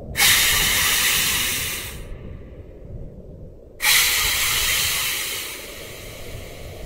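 Two loud hisses, each starting abruptly. The first lasts about two seconds; the second begins a little under two seconds later and fades out gradually.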